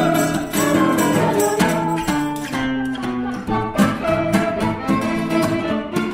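Small folk band rehearsing: a violin playing a melody over strummed guitar with a steady beat.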